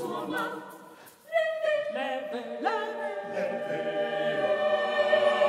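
Mixed choir singing a cappella: a phrase dies away, and after a short break about a second in, the full choir comes in loudly on held chords that swell.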